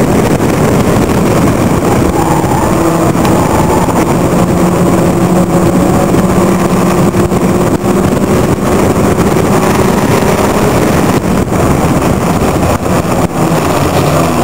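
Onboard sound of a Locost club racing car at racing speed: its engine running hard with a loud, steady note under a dense rush of noise, dipping briefly a few times near the end.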